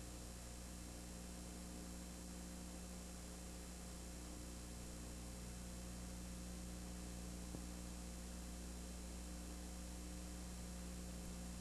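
Steady electrical hum with an even hiss over it and no game sound; a faint click about seven and a half seconds in.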